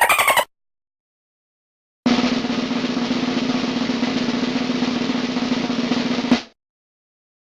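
Snare drum roll sound effect: a fast, even roll lasting about four seconds that ends on a single sharp hit. It is preceded, in the first half second, by the end of a rapid rattling effect.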